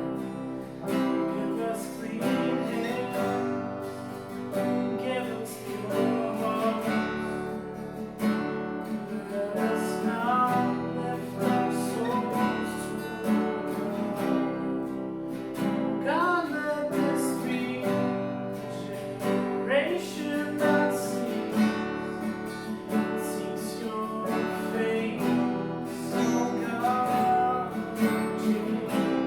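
Worship song played on a strummed acoustic guitar.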